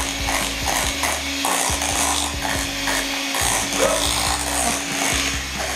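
Electric hand mixer running with its beaters in cake batter in a glass bowl: a steady motor tone with scraping and churning over it.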